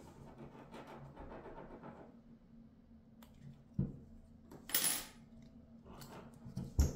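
Handling noises from unboxing a smartphone and its packaging: faint rustling, a soft knock about four seconds in, a short bright scrape around five seconds, and another knock near the end.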